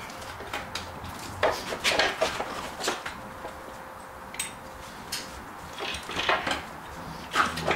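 Irregular metallic clinks and knocks of a hand tool against metal engine and gearbox parts, in small clusters, over a faint steady hum.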